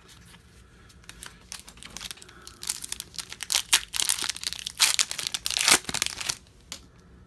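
A foil trading-card pack being torn open and its wrapper crinkled by hand: faint handling at first, then a few seconds of loud crackling and tearing that dies down about six seconds in.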